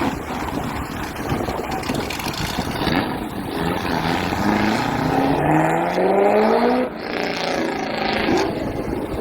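A car engine accelerating hard: its note climbs steadily for about three seconds, drops suddenly as it shifts up a gear, then climbs again more faintly, over wind noise on the microphone.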